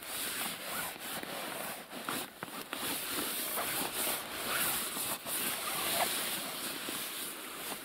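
Handfuls of grass scrubbed and rubbed over the wet floor of an inflatable PVC boat, a steady wet rustling with a few light knocks.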